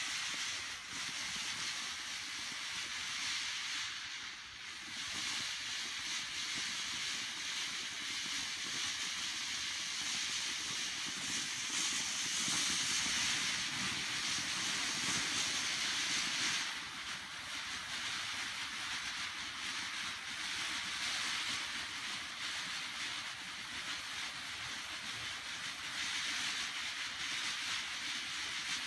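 Kylin King 'Bees Escaping' firework fountain spraying sparks with a steady hiss. It grows louder for several seconds midway, then eases back.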